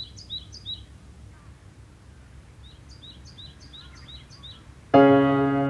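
A bird calling in two runs of short, high chirps, about three a second, over a low steady outdoor rumble. Near the end an electric piano chord comes in suddenly and is the loudest sound.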